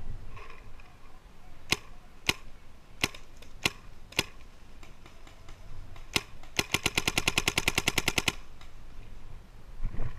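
Planet Eclipse Etek 5 electronic paintball marker firing: six single shots about half a second to two seconds apart. It then fires a rapid string of about twenty shots in under two seconds, roughly a dozen a second.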